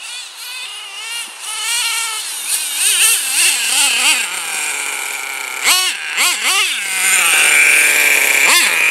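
HPI F4.6 two-stroke nitro engine in a radio-controlled Traxxas T-Maxx monster truck, revving up and down as the truck drives, growing louder as it comes closer. About six seconds in come three quick sharp throttle blips, then it runs at a steady lower speed, with one more blip near the end.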